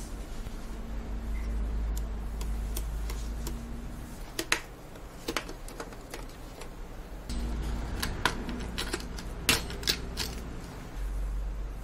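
Sharp plastic and metal clicks and snaps as the CPU cooler and memory are worked loose from a bare motherboard, about half a dozen strong clicks from about four seconds in. Under them is a low steady hum.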